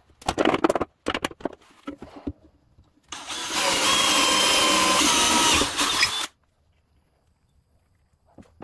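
A few clicks and knocks from handling clamps on the wooden box, then a cordless drill runs steadily for about three seconds, boring a hole into the box's wooden bottom panel, and stops suddenly.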